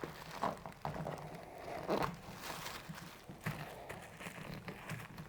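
Rustling and crinkling of a seat cover being pulled back and stretched by hand over the seat, with scattered light clicks.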